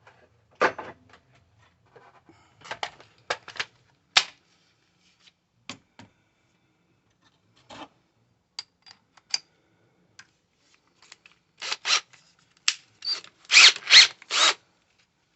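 Irregular scraping and rubbing strokes from hand work on a part, short and spaced out, ending in a run of three longer, louder strokes near the end.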